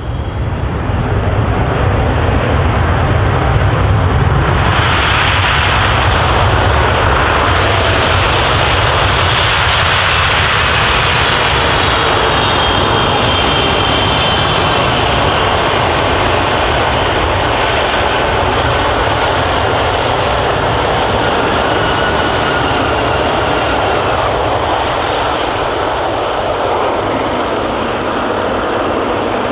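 Boeing 777 twin jet engines during the landing rollout on a wet runway, with thrust reversers deployed: loud, steady jet noise that swells over the first couple of seconds and stays loud, with faint engine whines gliding slowly in pitch.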